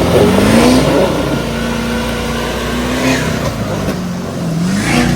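Pickup truck engine revving hard: the pitch climbs in the first second, holds high, then rises again near the end.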